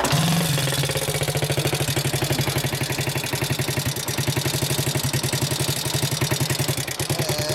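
Honda Super Cub 90's single-cylinder four-stroke engine idling through a JUN International aftermarket chrome muffler: a steady, even exhaust beat of many quick pulses a second.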